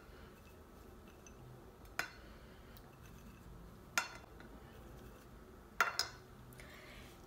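Toasted peanuts dropped by hand onto a salad plate, giving a few small sharp clicks against the plate: one about two seconds in, one at four seconds and a quick pair near six seconds.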